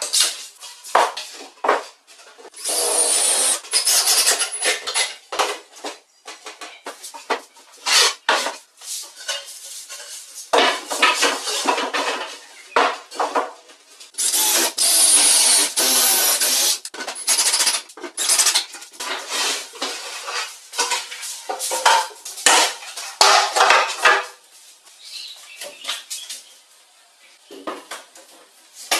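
DeWalt cordless drill boring holes through plywood in runs of a few seconds, with a steady high whine, between the clatter and knocks of the wood and tools being handled.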